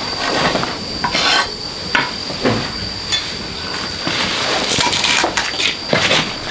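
Irregular knocks and clatters of vegetable preparation: a knife tapping on a wooden chopping board and bowls being handled, with a steady faint high tone underneath.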